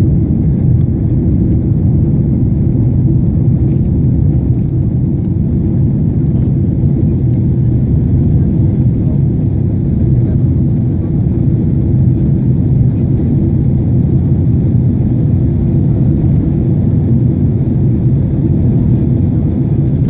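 Steady low rumble of a jet airliner in flight after take-off, heard from inside the cabin, without change in pitch or level.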